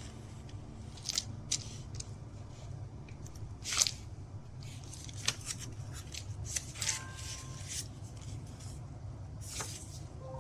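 Pages of a handmade junk journal being turned and handled: paper rustling and crinkling in short, irregular bursts, the loudest about four seconds in, over a steady low hum.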